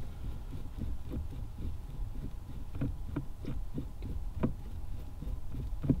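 Faint, irregular clicks and light knocks of a manual-transmission shift knob being spun off its threaded shifter shaft by hand, over a low steady hum. The clearest knock comes about four and a half seconds in, and another just before the end.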